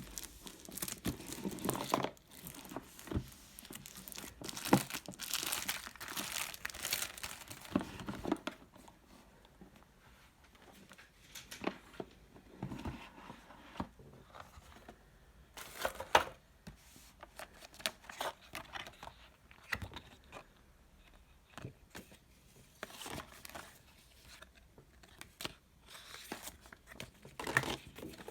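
Packaging being handled, with crinkling and tearing in irregular bursts and occasional sharp knocks, busiest in the first nine seconds.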